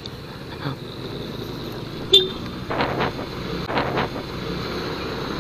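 Yamaha NMAX scooter running along a rough road with steady engine and road noise, and a vehicle horn sounding: a short toot about two seconds in, then two longer honks about a second apart.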